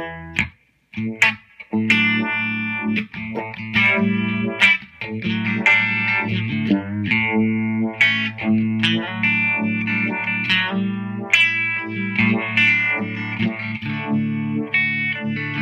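Electric guitar, a Fender Stratocaster with Fralin pickups, played through a Big Knob Pedals Vibe Tone Univibe-style pedal into a Fender '65 Deluxe Reverb reissue amp with a little reverb. The guitar plays strummed and picked chords, restruck every second or so, with the pedal's rotary-style vibe effect on.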